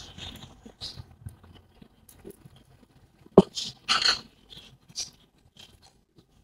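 Glass serving bowl being covered with a glass lid over a live smoking coal for coal-smoking (dhungar). There are scattered small clicks, one sharp glassy knock a little past halfway, then a few short hisses.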